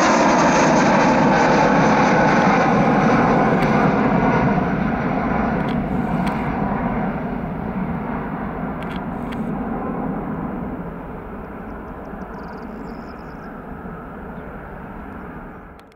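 Airbus A320-232's twin IAE V2500 turbofans running at takeoff thrust as the jet climbs away, with a faintly falling whine. The engine noise holds steady for about four seconds, then fades as the aircraft recedes, and cuts off abruptly at the very end.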